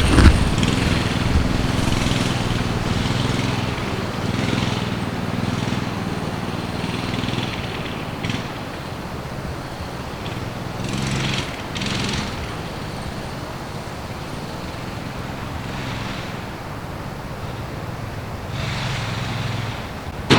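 Mini bike's small engine running, with a few louder surges along the way.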